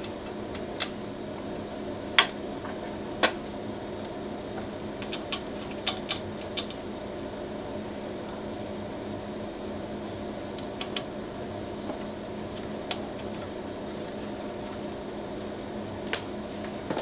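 Scattered small sharp clicks and taps of screws and nylock nuts being handled and threaded by hand into a 3D printer's heatbed, about a dozen at irregular intervals, over a steady low hum.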